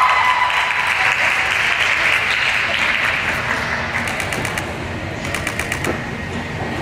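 Spectators applauding and cheering for a gymnast, the noise fading away over a few seconds, with runs of quick scattered claps in the second half.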